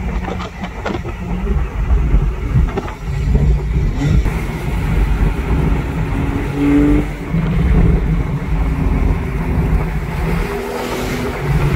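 Sports car driving fast, heard from inside the open-top car: a steady low engine rumble with wind and road noise, the engine note stepping up and down in pitch as it accelerates.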